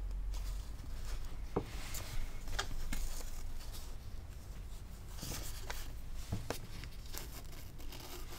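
Paper rustling and handling noise from folded paper signatures being turned and pressed flat while a book's text block is hand-sewn onto tapes, with a few sharp clicks and short swishes.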